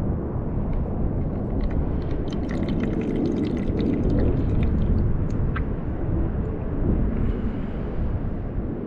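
Oily sludge draining out of an engine oil catch can, pouring and dripping, with small clicks and ticks in the middle over a steady low rumble.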